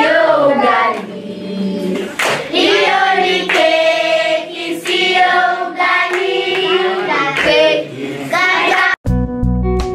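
A group of children singing together, with some hand clapping. About nine seconds in, the singing cuts off abruptly and guitar music starts.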